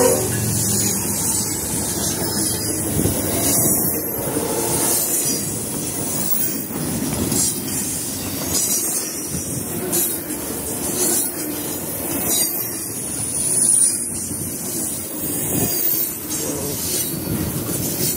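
Double-stack container train rolling past close by: a steady rumble of steel wheels on rail, with clicks over the rail joints and thin high wheel squeals now and then.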